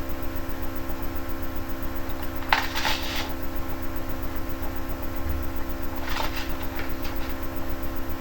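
Steady electrical hum, with two short bursts of rustling packaging being handled: one about two and a half seconds in, another about six seconds in.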